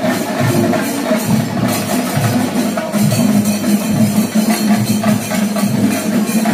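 Festival percussion music: drums and cymbals playing a fast, steady beat over a held pitched tone, without a break.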